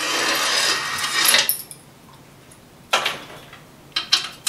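Small metal Allen wrenches on a ring jingling and clinking together as they are handled, for about a second and a half, followed by a few sharp metal clicks.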